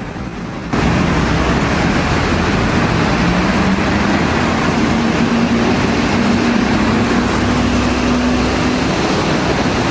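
Steady, loud engine noise with a rushing sound that steps up sharply about a second in. A low hum underneath slowly rises in pitch.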